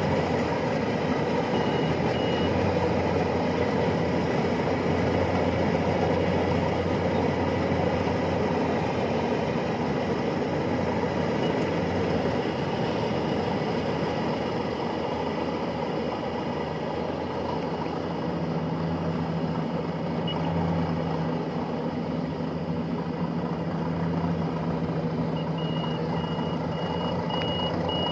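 Iseki rice combine harvester running steadily as it cuts through the paddy, its engine drone constant. A high electronic beeper on the machine sounds briefly about two seconds in and beeps repeatedly near the end.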